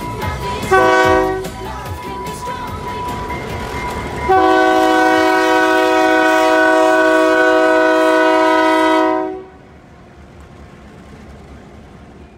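Diesel locomotive's multi-chime air horn sounding at a grade crossing: one short blast, then about four seconds in a loud long blast of about five seconds. After the horn stops, a quieter rumble of the passing locomotive is left.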